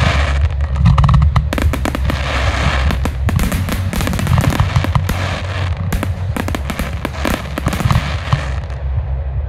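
Fireworks display: rapid, overlapping bangs and crackles of aerial shells and comets bursting, over a continuous low rumble, recorded on a mobile phone.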